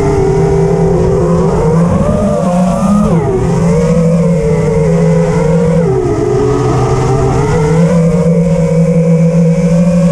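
iFlight Nazgul5 4S five-inch FPV quad's brushless motors and propellers whining in flight, recorded by the onboard action camera. The whine rises and falls with the throttle, dipping and climbing again about three seconds in and again about six seconds in.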